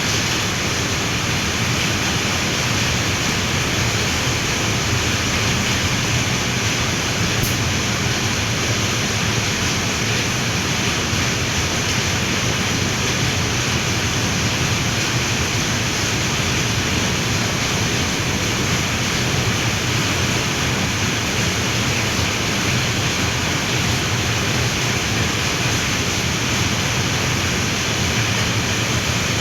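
Heavy rain pouring down, a loud, steady, dense hiss that does not let up.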